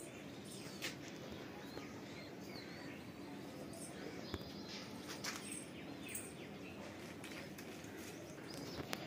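Faint background noise with scattered short bird chirps and a few brief clicks.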